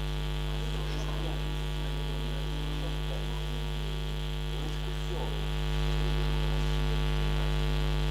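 Steady electrical mains hum on the meeting-room microphone and sound system, a low buzz with higher overtones. It gets slightly louder about three-quarters of the way through, over faint room sounds.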